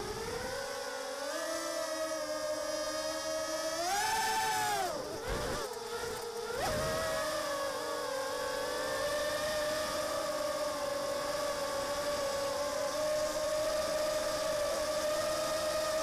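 Armattan Mini Hex hexacopter's six 1306 3100kv brushless motors and propellers whining, heard from its onboard camera. The pitch rises sharply about four seconds in as the throttle comes up and it lifts off, dips and wavers for a couple of seconds, then holds a steady whine.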